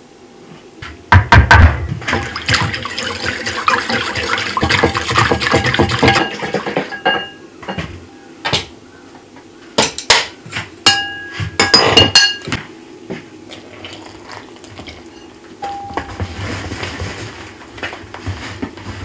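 Liquid swishing in a ceramic bowl for several seconds as ramen noodle brine of water, salt, kansui and gardenia powder is mixed. Later come a run of sharp clinks and knocks as a silicone whisk is set in a stainless steel tray, and near the end a soft rustle of a hand in flour.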